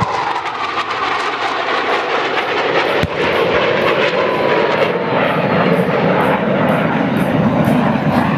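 Jet noise from CF-18 Hornet fighters, twin-engine jets, making a low attack pass, growing louder toward the end. About three seconds in, one sharp bang from a pyrotechnic explosion simulating a bomb strike.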